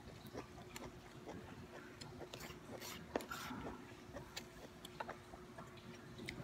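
Faint chewing with scattered light clicks and scrapes of a plastic fork and knife cutting food on a paper plate, one sharper click about three seconds in, over a faint steady hum.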